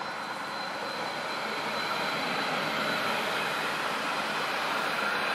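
Articulated low-floor tram passing close by: a steady rush and rumble of wheels on rail, growing slightly louder as it draws alongside, with a thin high whine through the first half.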